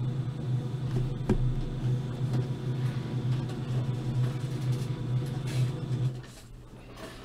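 Printer running with a steady low hum and a click about a second in, then stopping about six seconds in.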